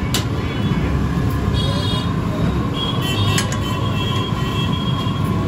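Steady low rumble of a jalebi stall's frying, with hot oil bubbling in the kadhai and two sharp metal clinks of utensils, one near the start and one about three seconds in.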